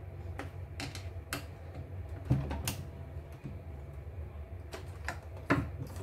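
Irregular clicks and light knocks from a stripped-down computerized embroidery machine's mechanism and loose parts as it is worked by hand at the handwheel, checking where its stiff, heavy rotation comes from. A steady low hum runs underneath.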